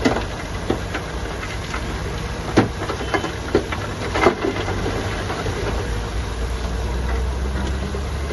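Heavy construction machinery running with a steady diesel engine hum, broken by a few sharp clanks and knocks. The engine hum swells a little in the second half.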